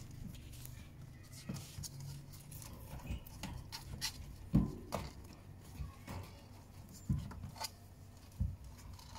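Scattered light clicks and knocks from a wire pet cage being handled, with a louder thump about four and a half seconds in and another about seven seconds in.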